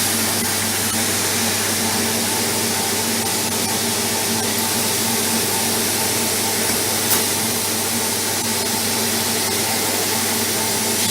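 CNC plasma cutting torch running, a loud steady hiss with a low hum underneath, and a single click about seven seconds in.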